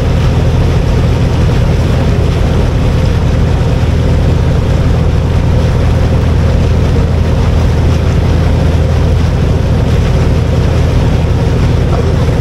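Tour boat's engine running with a steady low drone, under a constant rush of wind and water noise.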